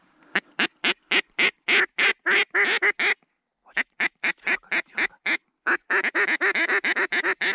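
Mouth-blown mallard duck call sounded in long runs of loud quacks, about four a second, in three sequences separated by short pauses, calling to passing mallards.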